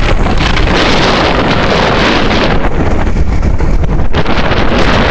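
Loud, gusting wind buffeting the microphone of a camera carried at speed in the open air, a dense rushing noise with a heavy low rumble that never lets up.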